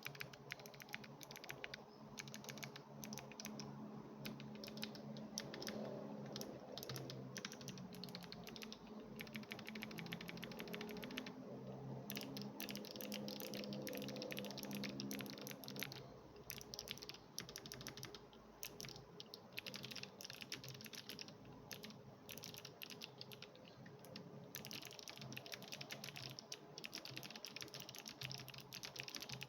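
Mechanical keyboard fitted with KBDfans Agar Melodic Clicky switches being typed on: rapid, dense clicky keystrokes with a few brief pauses. A faint low hum runs under the first half.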